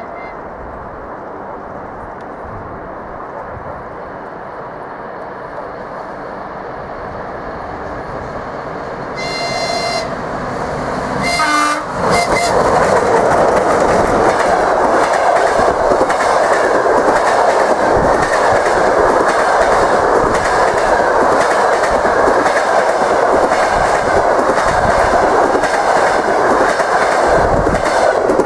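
A ChS7 electric locomotive and its passenger train approach with a growing rumble. The locomotive sounds its horn twice, about nine and eleven seconds in, and the second blast drops in pitch as it goes by. The passenger cars then rush past loudly, their wheels clacking over the rail joints.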